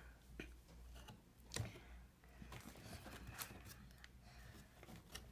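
Faint light clicks and rustles of fingers handling the open cardboard doors of an advent calendar, with a few sharper ticks scattered through.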